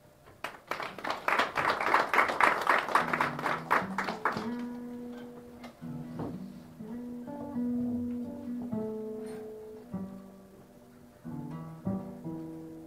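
Acoustic guitar playing: a few seconds of fast strumming, then slower picked notes and chords that ring on.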